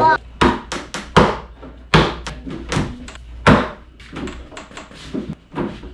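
Hands striking the top board of an IKEA KALLAX shelf unit, driving it down onto its dowels: about ten sharp knocks on the board, irregularly spaced.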